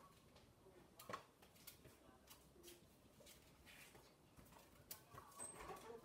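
Faint, irregular knife taps on a cutting board as watermelon rind is cut into small pieces.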